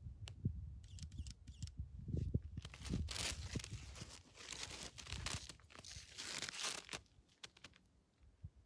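Close crinkly rustling against the microphone, like fabric or the phone being handled, loudest from about two and a half seconds in to about seven seconds, with low wind-like buffeting in the first part.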